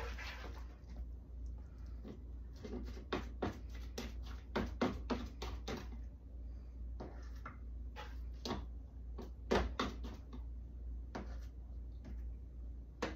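A spoon scraping a skillet and tapping against a plastic canning funnel and glass jar as cooked ground meat is spooned into the jar: a string of irregular clicks and knocks over a steady low hum.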